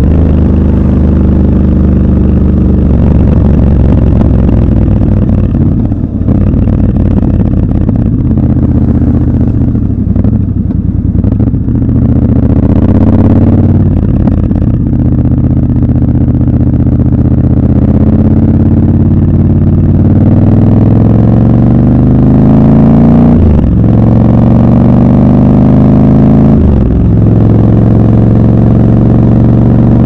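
Triumph Scrambler 1200 XC's parallel-twin engine under way, pitch climbing through each gear and dropping back sharply at each upshift: once at the start and twice more near the end. The engine eases off for a quieter stretch around the middle before pulling again.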